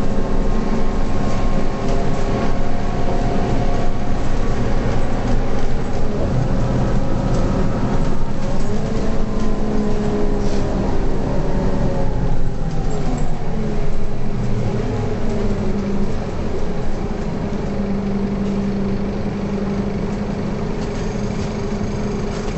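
Scania K230UB city bus's rear-mounted five-cylinder diesel, heard from inside the passenger cabin while under way. About midway its note falls as the bus slows, and it settles into a steady idle.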